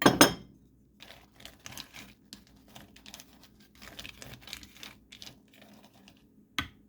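Butterscotch chips being scattered and spread by hand across a baking pan: an irregular patter of small clicks and rustles, with a louder knock right at the start and a sharp click near the end.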